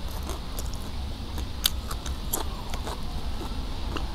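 Close-up eating sounds: a person chewing, with scattered small crunchy clicks and two sharper ones in the middle.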